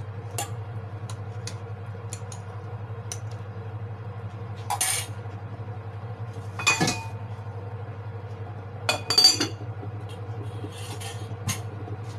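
Kitchenware clinking and clattering: a stainless steel bowl knocking against a ceramic soup pot and a glass lid being handled and set on the pot. The sound is a few small clicks and three louder clatters, over a steady low hum.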